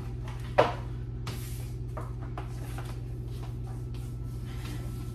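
Cardboard boxes being handled and lifted off a stack: one sharp knock about half a second in, then lighter scraping and rustling strokes, over a steady low hum.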